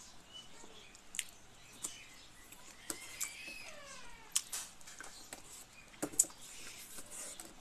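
Sharp wet clicks and smacks of someone chewing and eating with their hands, the loudest a little after six seconds in. In the middle, a faint animal call falls in pitch for about a second.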